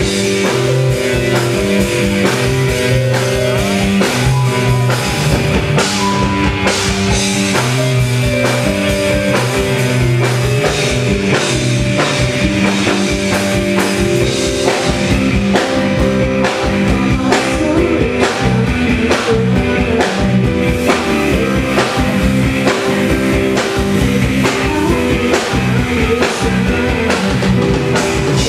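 Live rock music from a piano, bass guitar and drum kit trio playing full out, with a steady drum beat under held chords.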